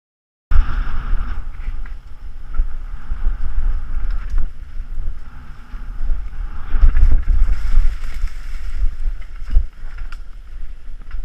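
Wind buffeting a helmet camera's microphone in a loud, uneven low rumble as a mountain bike descends a dirt trail, with scattered sharp knocks and rattles from the bike over rough ground. It starts abruptly about half a second in.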